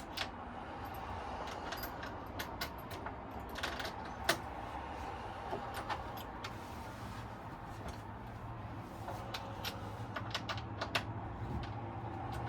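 Scattered light clicks and taps from handling sofa parts and hardware during assembly, the sharpest about four seconds in, over a steady low hum.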